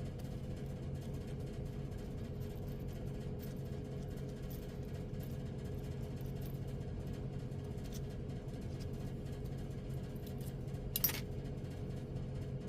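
Steady low hum with faint scattered ticks, and one light click about eleven seconds in, as of small metal locomotive parts being handled.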